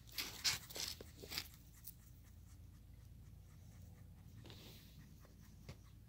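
A puppy's paws and claws scrape and scratch on concrete in a few short strokes during the first second and a half, then only a faint low steady hum remains.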